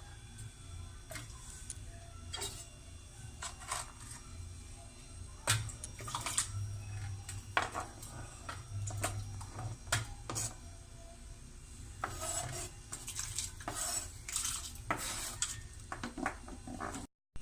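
A kitchen knife cutting potato, making irregular sharp clicks and knocks as the blade strikes the surface beneath. The strokes come closer together for a few seconds near the end.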